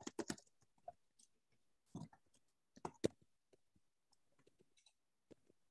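Faint, scattered clicks of someone working a computer keyboard and mouse: a few quick taps at the start, then single clicks or short pairs every second or so, with near silence between them.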